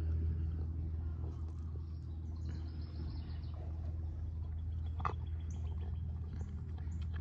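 A steady low mechanical hum, with a Boston terrier licking at a frozen treat and birds chirping now and then from about five seconds in. A single sharp click comes about five seconds in.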